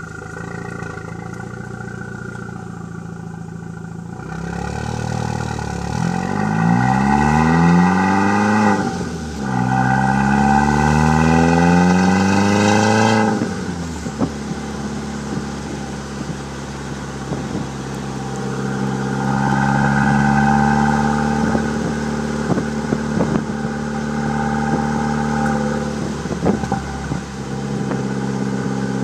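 2003 Passat 1.8T's turbocharged four-cylinder running through a free-flow exhaust (2.5-inch straight pipe with the resonator deleted, Magnaflow muffler) heard at the tailpipes. It idles, is revved up twice in long rising climbs, then drops back to a steady idle.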